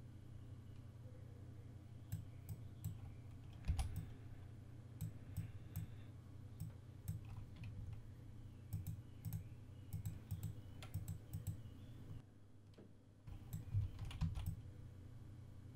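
Irregular light clicks and taps of a computer mouse and keyboard, over a steady low hum.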